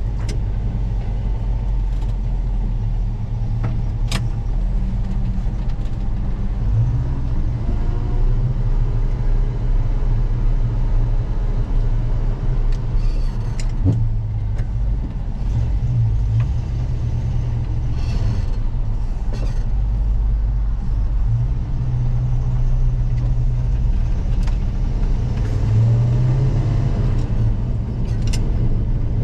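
1974 Ford F-100's 390 FE big-block V8 pulling the truck down the road, a steady low drone whose pitch climbs and drops a few times as it accelerates and changes gear.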